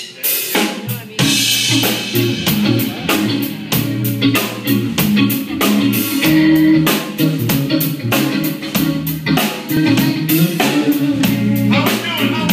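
Live blues-rock band playing an instrumental opening: electric guitars over a drum kit keeping a steady beat, starting right at the beginning.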